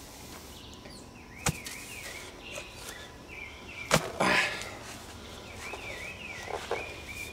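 Two sharp knocks about two and a half seconds apart, the second followed by a brief scrape, from hand work at a freshly dug hole. A bird calls behind them in short wavering phrases several times.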